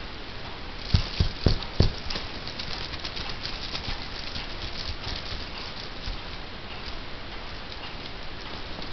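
A kitten playing right at the camera: four loud thumps in quick succession about a second in, then a steady light patter of scratching and rustling.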